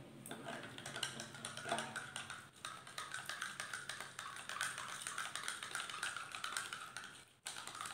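Metal teaspoon stirring a thin liquid serum in a small glass jar, clinking and scraping rapidly against the glass. The clinking breaks off for a moment near the end.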